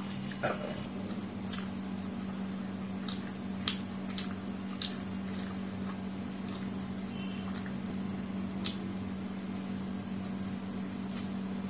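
Close-up eating sounds: egg fried noodles being picked up by hand and chewed, with scattered short wet clicks and smacks, over a steady low hum.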